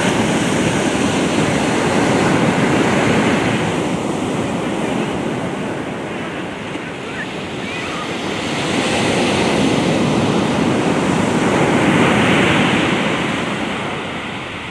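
Ocean surf breaking and washing up the beach, a steady rushing wash that swells louder twice, the second time about nine seconds in, and eases off near the end.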